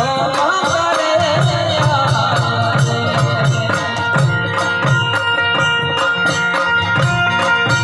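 Gujarati garba folk music: a steady drum beat under rattling hand percussion and sustained reed-like tones, with a wavering melodic line in the first second or so.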